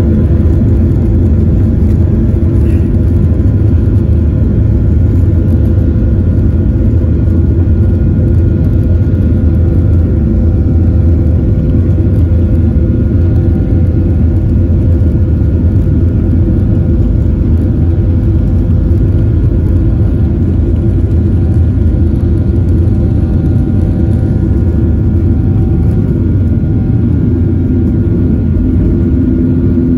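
Boeing 737-800's CFM56-7B turbofan engines at takeoff thrust, heard from inside the cabin during the takeoff roll. A loud, steady low rumble runs under several steady whining tones, and a lower tone comes in near the end.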